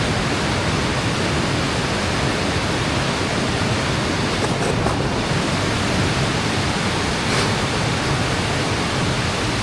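Steady rushing of a fast mountain stream tumbling over rocks, an even hiss of flowing water.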